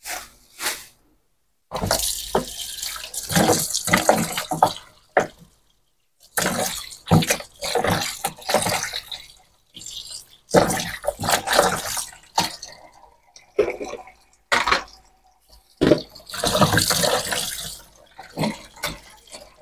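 Kitchen tap running into the sink in several stretches, broken by short pauses, as raw pork and chicken are rinsed under it by hand.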